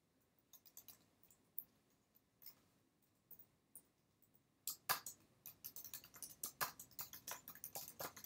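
Scattered clicks, then from about five seconds in a fast run of computer keyboard keystrokes as a folder name is typed.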